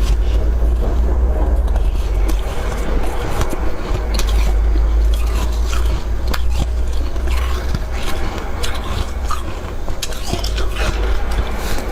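Biting and chewing a handful of humidifier frost: scattered sharp crunches at irregular intervals, over a steady low rumble.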